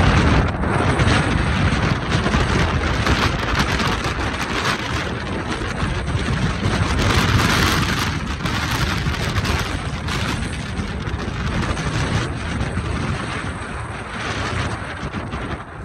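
Strong mountain wind buffeting the camera's microphone: a loud rushing noise that rises and falls in gusts, strongest about seven to eight seconds in and easing near the end.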